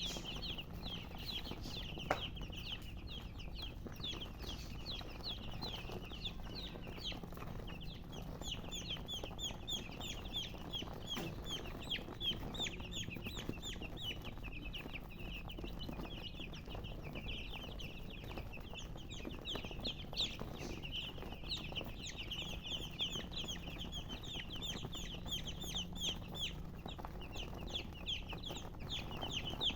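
A group of domestic chicks peeping without pause, with many short, high chirps that each slide down in pitch and overlap one another.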